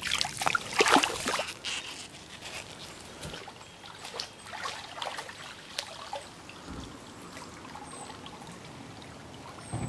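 Shallow creek water splashing as a person wades through it close by, loudest in the first second and a half. Softer trickles and small splashes follow as he kneels and moves his hands and plants in the water.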